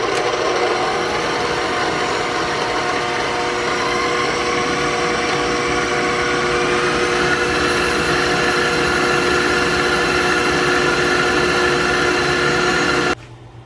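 KitchenAid stand mixer running steadily with its flat beater, mixing butter, brown sugar and egg into a thick cookie dough. The motor whine edges up slightly in pitch a few seconds in and cuts off suddenly near the end.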